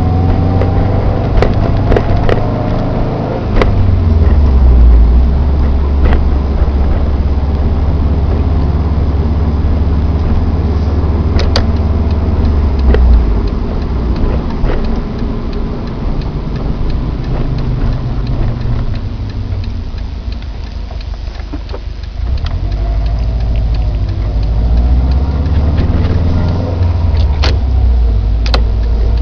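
A 2009 Subaru Impreza WRX STI's turbocharged flat-four engine running, its note changing level several times and dropping lower for a few seconds past the middle. Scattered sharp clicks sound over it, part of a weird noise the owner cannot identify.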